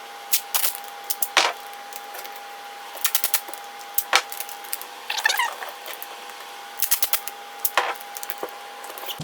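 Scattered clicks, knocks and light rattles of a cardboard-framed air conditioning filter being handled and fitted onto the back of a plastic box fan, in small clusters every second or two.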